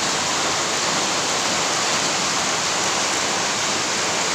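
Heavy rain pouring down steadily, a dense, even hiss of rainfall on pavement and roofs.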